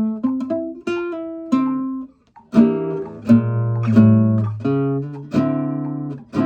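1976 Kazuo Yairi CY 130 acoustic guitar being played: a line of single plucked notes, a brief pause about two seconds in, then fuller ringing chords with low bass notes.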